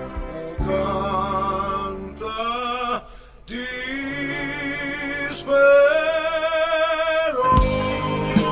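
Male voice singing a Genoese-dialect song, long held notes with vibrato over the accompaniment, breaking off briefly about three seconds in. Near the end the full band comes back with a steady beat.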